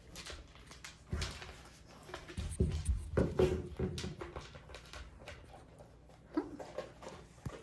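Dog pushing a hard plastic kibble-dispensing puzzle toy around the floor: irregular knocks and clatters as the toy tips and rolls.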